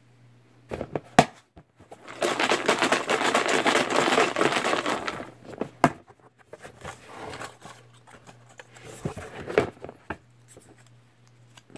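Folded paper raffle slips rustling and crinkling as they are mixed and handled by hand, loudest for about three seconds in the middle, with a few sharp clicks and softer rustling afterwards.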